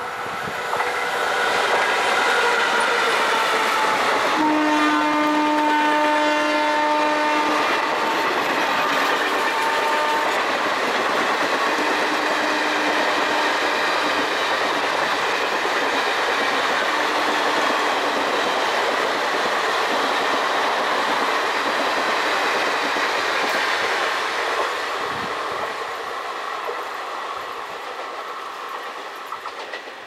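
WCAM-1 electric locomotive passing at speed, its traction-motor blowers whining. Its horn sounds a long blast about four seconds in, then shorter honks. The coaches' wheels clatter over the rail joints, fading near the end as the train moves away.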